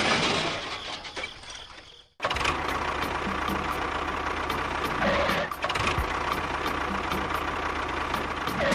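A small motor running steadily after a brief cut, with a held whine and light regular ticking about three times a second, typical of the small electric motor in a DIY model tractor.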